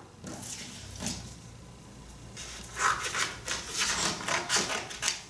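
Construction paper rustling as it is handled, then scissors snipping through it in a run of short cuts, about three a second, through the second half.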